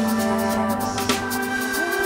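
Background electronic music: sustained tones with a note sliding upward near the end, over sharp percussive hits.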